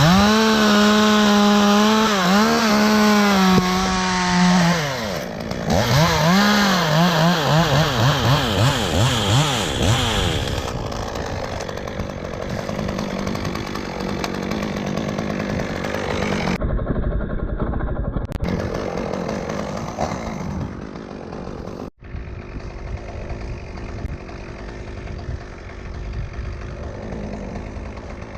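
Chainsaw running at full throttle, its pitch dipping and wavering as it cuts into dead oak wood, then falling back to a quieter, rougher running sound about ten seconds in.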